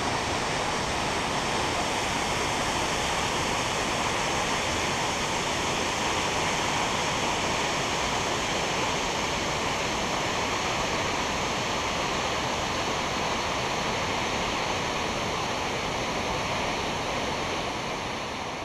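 Steady rushing of water flowing through the dam tailrace, an even roar that fades down near the end.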